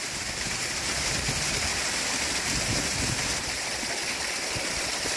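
Small waterfall on a hill burn rushing steadily over rocks, in spate and carrying far more water than usual.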